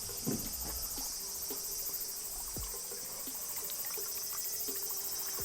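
Steady, high-pitched chorus of insects, a fine rapid pulsing, with scattered faint ticks.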